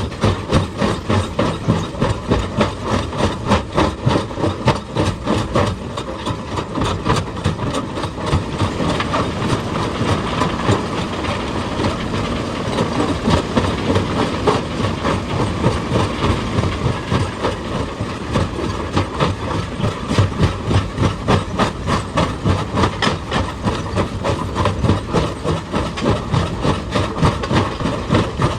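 Excavator working rock, its engine running under a rapid, steady train of knocks.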